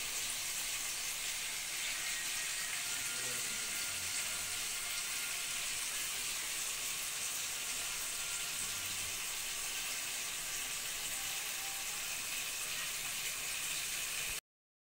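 Steady sizzling hiss of chicken pakodi deep-frying in hot oil. It cuts off abruptly near the end.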